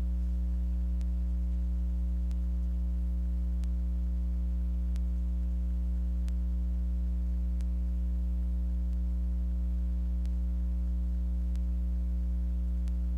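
Steady electrical mains hum with its stack of overtones, unchanging in level, with faint regular ticks a little under once a second apart.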